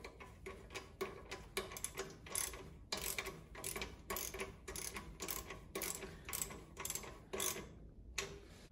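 Hand screwdriver turning a screw into a plastic number-plate holder on a steel bumper: a steady run of short clicks, about three a second, stopping shortly before the end.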